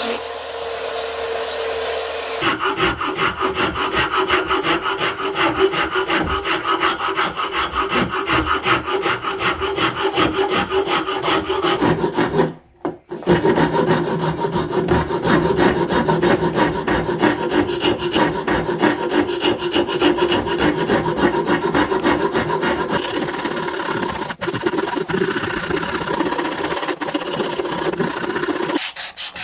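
A benchtop belt sander runs steadily for the first two seconds or so. Then a rasp scrapes rapidly back and forth along a wooden axe handle, shaping it, with a brief break about halfway through.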